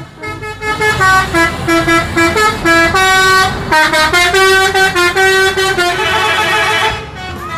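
Multi-tone musical bus horn, the 'telolet' horn of Indonesian coaches, playing a quick tune of stepped notes. It is loud and stops about seven seconds in.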